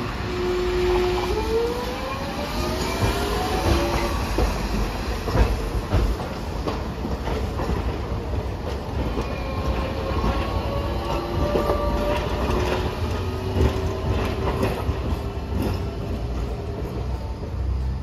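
Hiroden 3950-series Green Liner articulated tram running over street track. A motor whine rises in pitch over the first few seconds, and later thin squealing tones mix with a low rumble and scattered clicks over rail joints and crossings.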